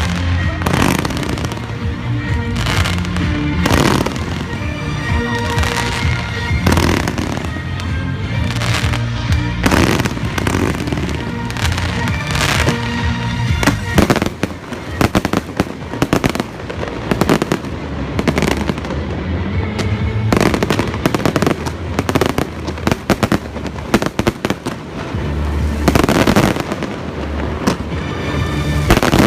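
Fireworks display: shell bursts and booms one after another, turning into rapid crackling volleys about halfway through, over music playing with the show.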